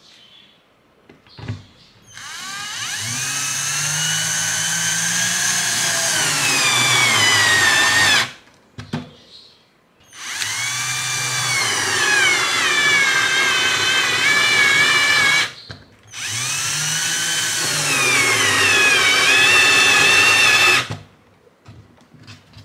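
Cordless drill running in three long runs of about five to six seconds each, its motor whine shifting in pitch within each run as it drills mounting holes through the base of a plastic junction box.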